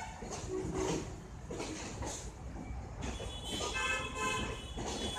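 Passenger train coaches rolling past on the rails: a steady low rumble of wheels, with brief pitched sounds over it about three and a half seconds in.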